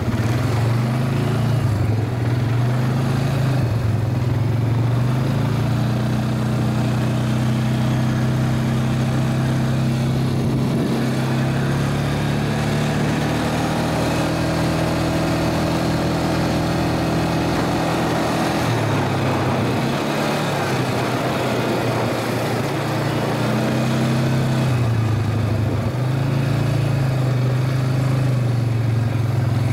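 Engine of the vehicle carrying the microphone, running steadily as it drives, loud and close. Its pitch dips and picks up again a couple of times in the second half.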